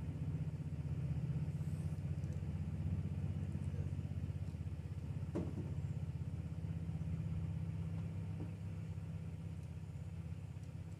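A low, steady engine rumble, like a motor vehicle idling, that slowly fades toward the end.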